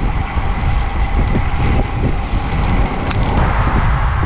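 Wind buffeting the microphone of a camera carried on a moving road bike: a loud, uneven rumble with a steady rushing haze over it.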